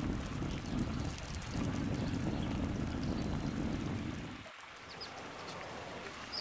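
A low rumble with light crackling over it, cutting off abruptly about four and a half seconds in and leaving a soft crackling hiss with scattered small ticks, as a pot of chicken broth simmers on a small stove.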